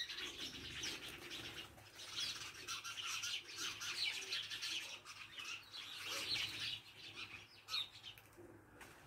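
Small birds chirping, many quick short calls overlapping, thinning out about eight seconds in.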